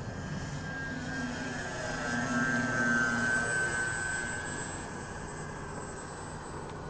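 Twin electric motors of a TwinStar RC model plane whining steadily as it flies overhead. The whine grows louder about two seconds in and fades away after about four seconds.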